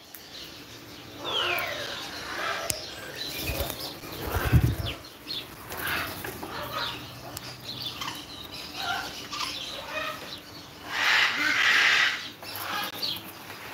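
Parrot wings flapping as a bird moves about, with the loudest rush of wingbeats about eleven seconds in. Short chirps and whistles from aviary birds run through it, and there are a couple of dull bumps about four seconds in.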